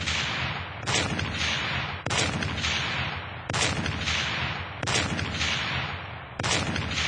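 A series of loud, noisy blasts, one about every second and a quarter, each sharp at the start and fading out over about a second.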